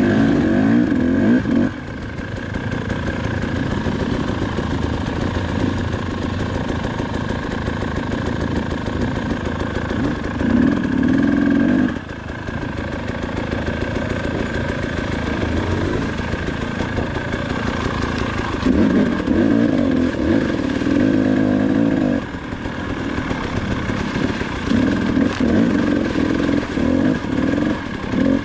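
KTM 300 XC-W's two-stroke single-cylinder engine running under load, with four short bursts of throttle between spells of lower, steadier running.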